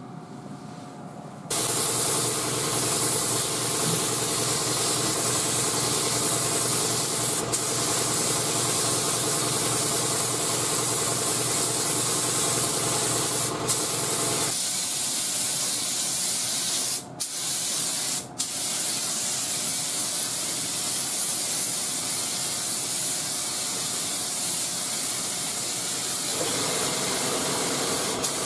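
Gravity-feed paint spray gun hissing steadily as it lays on metallic blue base coat. It starts about a second and a half in and is broken a few times by short gaps where the trigger is let off.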